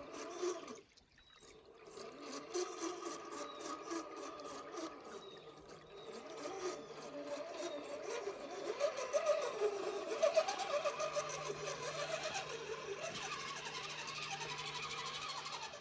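Small electric motor and gears of an RC rock crawler whining, the pitch wavering up and down as the throttle changes, with water noise mixed in.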